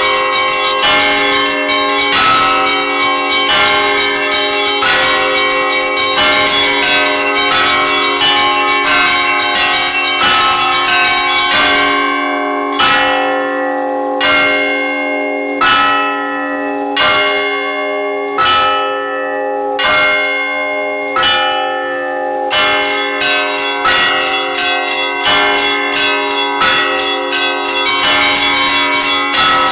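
Russian Orthodox church bells rung by a bell-ringer: many bells chiming in a dense, rapid peal. Partway through it thins to single strokes about a second and a half apart, seven in all. Near the end the full rapid peal returns.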